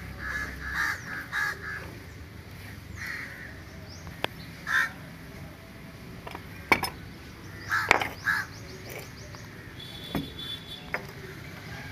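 Birds calling in groups of short repeated calls, with a few sharp clicks in between.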